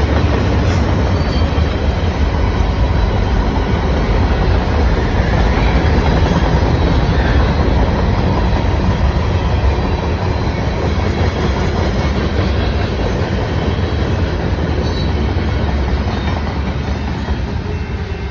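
CPKC freight train's cars rolling past, a steady heavy rumble of wheels on rail that eases slightly near the end.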